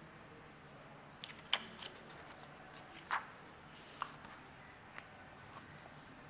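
Faint handling of sheets of paper: a handful of short rustles and soft taps, the loudest about one and a half and three seconds in.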